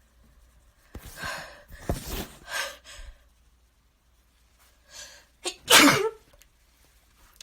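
A person in a sneezing fit: a cluster of sneezes with gasping in-breaths about a second in, then after a short pause a sharp in-breath and one loud sneeze near the end.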